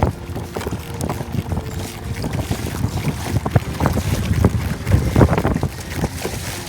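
Wind buffeting the microphone aboard a boat on rough water: an uneven low rumble with frequent irregular gusts and knocks, strongest a little after the middle.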